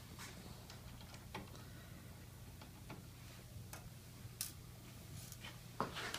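Faint, irregular small clicks and ticks of a screwdriver and loose screws as countersunk screws are taken out of a metal panel, over a steady low hum.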